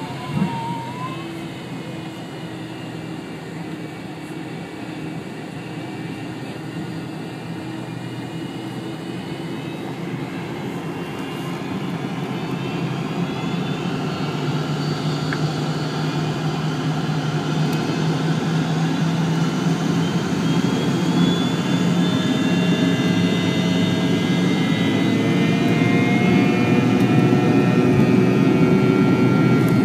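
MD-82 airliner's tail-mounted Pratt & Whitney JT8D turbofans heard from inside the cabin, spooling up for the takeoff roll: the engine whine climbs in pitch and the sound grows steadily louder through the second half. A brief bump sounds just after the start.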